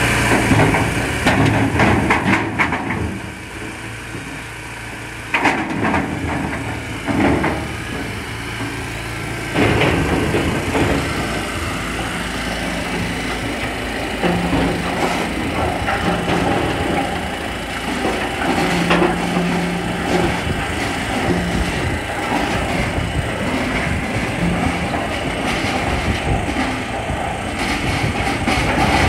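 Firewood processing machinery running: a rotating drum firewood tumbler churning split logs, with wood knocking and clattering continuously as pieces tumble and drop out onto the pile. Separate loud knocks stand out in the first ten seconds, then a steadier rattle with a low machine hum.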